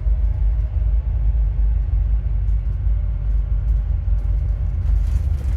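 Alexander Dennis Enviro400MMC double-decker bus heard from inside while under way: a steady low rumble of engine and road, with a faint steady whine over it. The whine is put down to a bad alternator.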